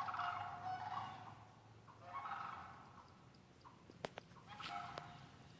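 Sandhill cranes calling in three bouts, with a couple of sharp clicks about four seconds in.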